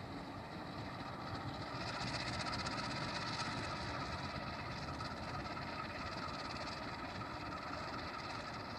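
Three Indonesian diesel-electric locomotives running together along the track, a steady engine drone with rail noise that eases off gradually as they move away.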